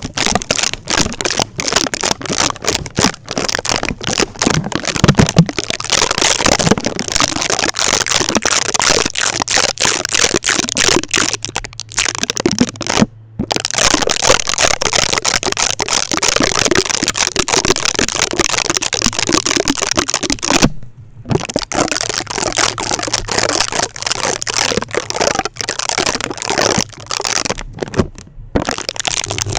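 Adhesive tape rapidly stuck onto and peeled off a microphone, making dense, fast, loud crackling and sticky ripping close to the mic. The crackling breaks off twice for a brief moment.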